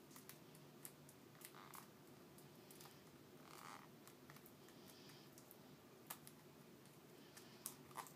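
Near silence broken by faint, scattered clicks and a soft rustle of toy packaging being handled and worked open.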